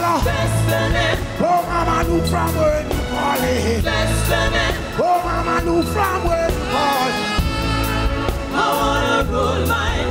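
Live reggae band playing with a heavy pulsing bass line while a male singer sings over it.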